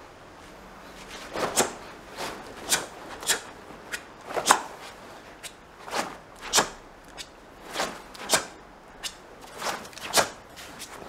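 Karate gi snapping and rustling with each fast strike and block of a kata: short sharp swishes about every half second to a second, some in quick pairs.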